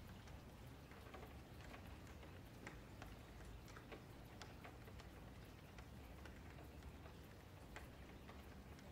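Faint, irregular clicks of a computer mouse and keyboard over a low steady hum, near the edge of silence.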